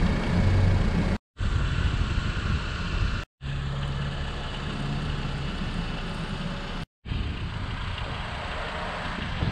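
Steady low rumble and hiss of outdoor noise, broken three times by brief silences where the clips are cut together.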